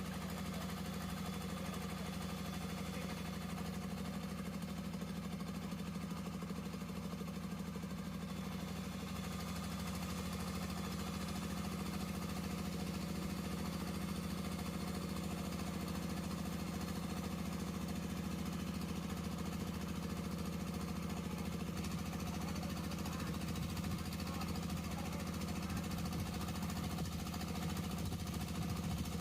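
Single-cylinder Jiangdong 1125 24 hp diesel engine of a cargo boat running steadily with a regular knock, growing slightly louder about ten seconds in.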